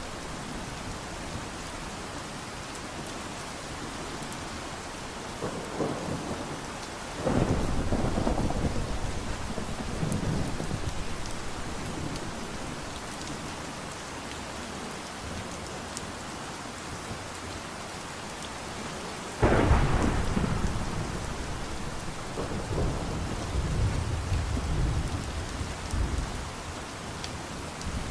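Steady rain during a thunderstorm, with two sudden thunderclaps, one about seven seconds in and a louder one near twenty seconds, each rumbling away over several seconds, and more low rumbles after the second.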